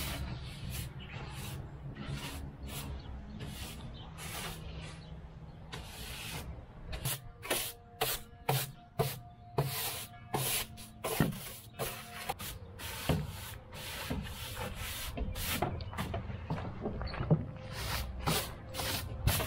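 Straw broom sweeping the wooden plank deck of a hay wagon: a run of short scraping strokes across the boards, about two a second, growing sharper and louder about a third of the way in.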